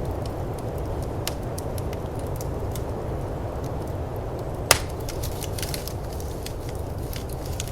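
Firepit wood fire crackling with scattered sharp snaps and one loud pop a little past halfway, over the steady low rushing of snowstorm wind.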